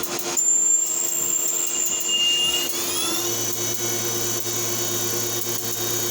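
Citizen Swiss-style CNC lathe running a threading and turning cycle on a 6061 aluminum screw: a steady high-pitched machine whine, and about three seconds in a motor whine rises in pitch and then holds steady.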